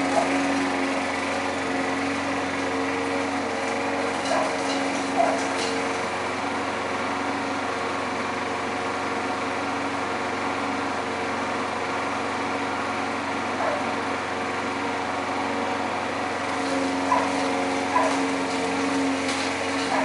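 Gas walk-behind lawn mower engine running steadily across the yard, its hum growing stronger near the end.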